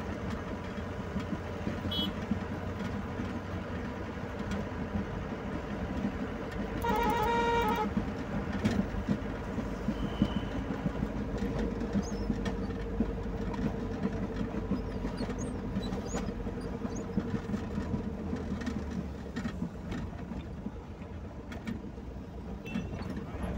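Steady engine and road noise of a car heard from inside the cabin while driving, with a single horn blast of under a second about seven seconds in.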